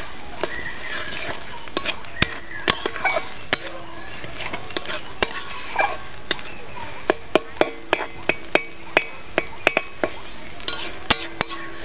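A metal spatula stirring and scraping ground helencha greens around an aluminium kadai, with frequent sharp clinks of the spatula against the pan that come faster in the second half, over a steady sizzle as the paste fries on low heat.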